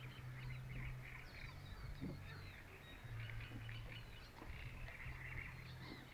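Birds chirping and calling in quick, overlapping short notes, over a faint steady low hum.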